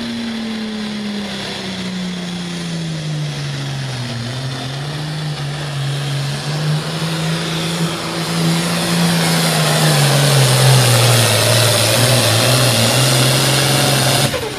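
Turbocharged diesel engine of a Super Farm pulling tractor running flat out under full load as it drags a weight-transfer sled. Its pitch sags steadily as the sled bears down. A loud hiss builds over the second half, and the sound cuts off suddenly near the end.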